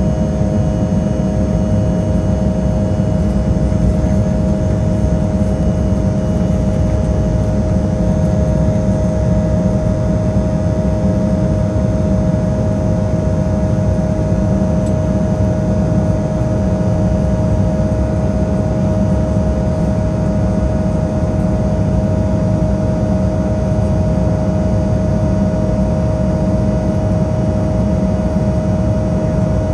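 Cabin noise inside an Embraer E175 climbing after takeoff: a steady low rumble of airflow and the wing-mounted GE CF34 turbofan engines, with a constant hum tone over it.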